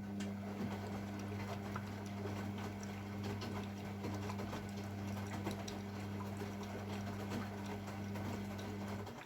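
AEG Lavamat W 1450 washing machine: a steady low electrical hum with water crackling and pattering over it, which cuts off suddenly near the end.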